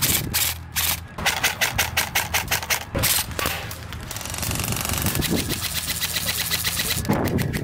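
Airsoft rifles firing rapid full-auto bursts of BBs, a fast mechanical rattle. From about halfway through, the fire turns into a denser, steadier stream.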